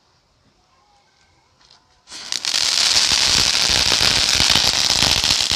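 Small ground fountain fireworks catch about two seconds in and spray sparks with a loud, steady hiss thick with rapid crackling.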